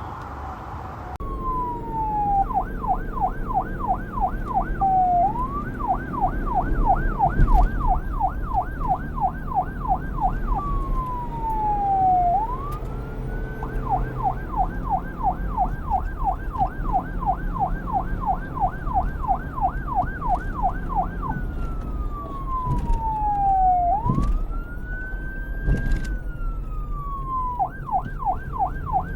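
Electronic police siren starting about a second in and switching between a fast yelp, rising and falling about four times a second, and slower single sweeps that fall and then rise again. A low vehicle rumble and a few short knocks lie underneath.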